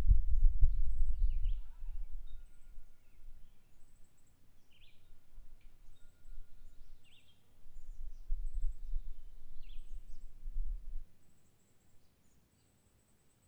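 Small birds chirping outdoors in the countryside, short high chirps and thin peeps repeating throughout. Beneath them is an uneven low rumble that is strongest at the start and again in the second half, stopping about two seconds before the end.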